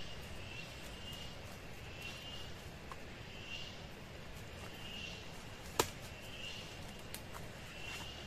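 Tropical forest ambience: a short high chirp repeats about every second and a half, over a man's footsteps through undergrowth and leaf litter, with faint ticks and one sharp click a little before six seconds in.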